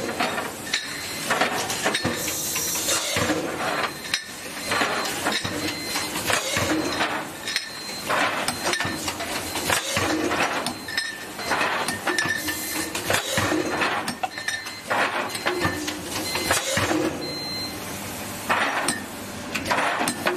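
Lids being put onto glass jars: repeated, irregular clinks and knocks of lid on glass over a steady hiss.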